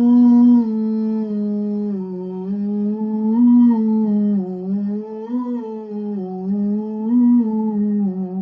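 A man's voice humming one long unbroken tone, swelling gently up and down in pitch about three times. It is a sound-healing toning of chakra notes.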